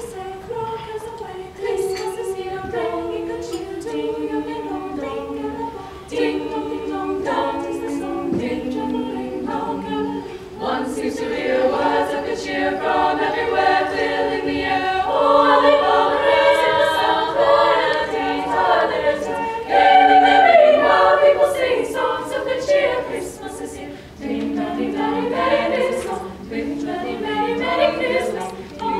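A small costumed choir singing a cappella in harmony. It grows louder about ten seconds in and is loudest in the middle, dropping back briefly before the end.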